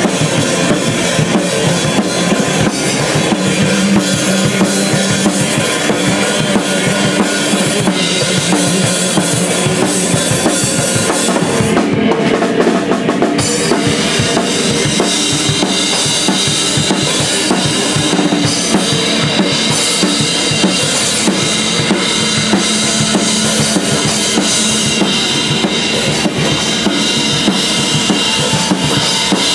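Live rock-style band music: a drum kit played hard with sticks, steady kick, snare and cymbal hits over sustained droning tones. Near the middle the cymbal wash drops out briefly, then comes back.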